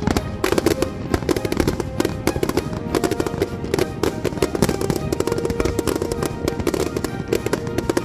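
Fireworks display exploding in quick succession, a dense run of bangs and crackling bursts, with background music playing over it.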